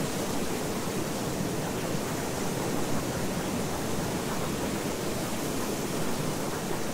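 Steady, even rushing noise with no pauses, pitch or rhythm: the masking sound track of a subliminal affirmations recording.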